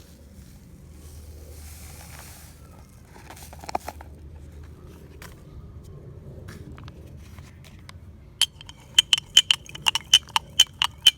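Elephant toothpaste foam rising with faint scattered crackles. About eight seconds in, a rapid run of sharp glassy clinks begins, roughly four or five a second, each ringing at the same high pitch.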